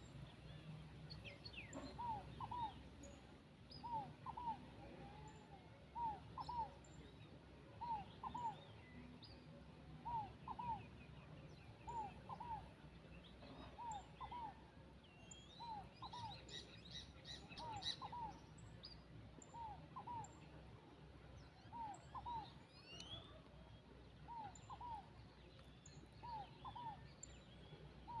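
A tierrelita, a small dove, calling: a soft two-note coo repeated about every two seconds, with other birds chirping faintly behind it and a brief run of clicks about two-thirds of the way through.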